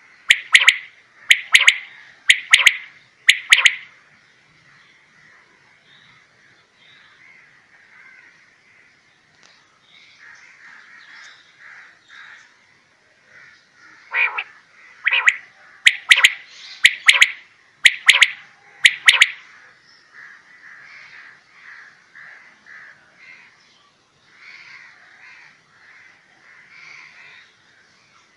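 Caged quail calling: a series of loud, sharp call notes at the start and another series of about seven notes around the middle, with faint chirping in between.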